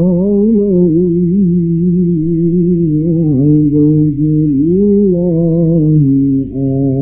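A male Quran reciter chanting in the ornate mujawwad style, holding one long melismatic phrase with wavering turns in pitch. The pitch drops briefly about six and a half seconds in and then climbs again.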